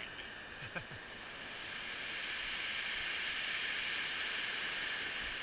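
A wave surging up a shingle beach and drawing back over the pebbles: a hiss that swells and fades over a few seconds. There are a few small clicks about a second in.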